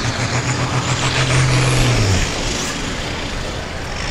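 Hot-farm pulling tractor's diesel engine revving hard while hooked to a pulling sled, its pitch climbing slightly and then dropping back about two seconds in before it settles to a lower, steady note.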